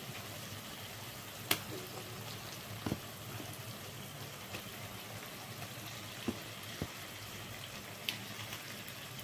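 Fish curry cooking in a pan: a steady low hiss of the pan cooking, with a few light clicks and taps scattered through.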